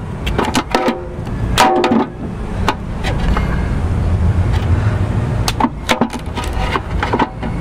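Scattered sharp clicks and knocks of metal kitchen tongs handling a prickly pear cactus pad, over a steady low outdoor rumble that swells in the middle.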